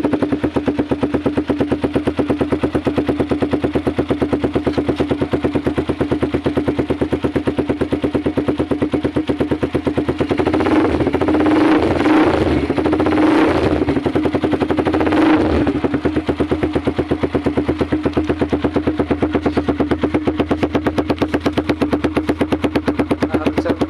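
Vperman 150 motorcycle engine running through a new Daeng Sai4 aftermarket muffler with a 51 mm big-elbow pipe, a rapid, even exhaust pulse at idle. A few short throttle blips come about halfway through, then it settles back to idle.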